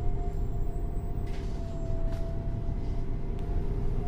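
Irisbus Cityclass bus's Iveco Cursor 8 CNG straight-six engine idling while the bus stands, a steady rumble with a whine on top that drifts slightly lower.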